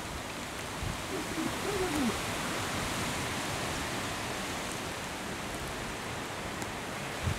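Steady rushing hiss of a vast murmuration of European starlings wheeling overhead, thousands of birds blending into one even sound.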